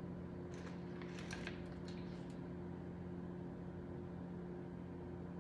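Steady low hum of a kitchen appliance, with a few faint clicks and taps of utensils in the first two seconds.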